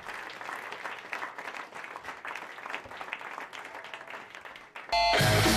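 Audience applauding after a song, the clapping thinning slightly. Near the end, loud guitar music cuts in abruptly.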